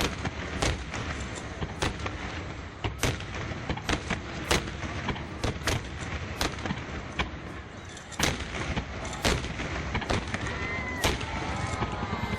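Aerial fireworks going off in rapid succession: sharp bangs about once a second over a continuous rumble of shell bursts.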